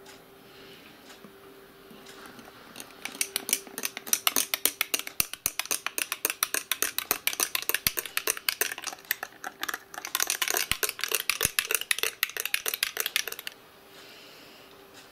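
Metal teaspoon clinking rapidly against the inside of a drinking glass as powder is stirred into tomato juice. The clinking goes on for about ten seconds, with a brief pause about two-thirds of the way through.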